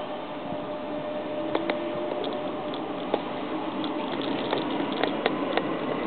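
Renfe class 446 electric commuter train moving through the station, a faint whine from its traction motors rising slowly in pitch as it picks up speed, over a steady rumbling hiss, with scattered light clicks.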